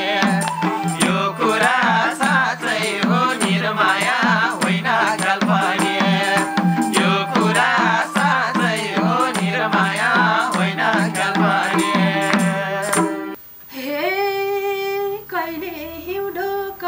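Live Nepali dohori folk music from a band of madal hand drums, harmonium and bansuri flute, with steady drum strokes under a running melody. It cuts off suddenly about 13 seconds in, and women's voices then sing without accompaniment.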